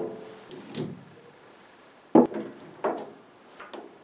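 Knocks and clunks of a lathe chuck being changed. Ringing fades from mallet blows that free the three-jaw chuck, then two sharp knocks come a little over two seconds in, with lighter metal clinks near the end, as the heavy chuck comes off onto a wooden board.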